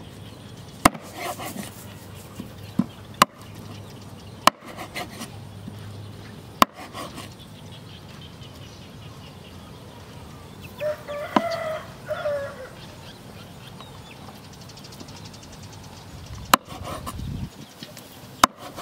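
Heavy steel cleaver chopping frog meat on a wooden cutting board: about six sharp single strikes, irregularly spaced, with a long gap in the middle. A rooster crows once in the background about eleven seconds in.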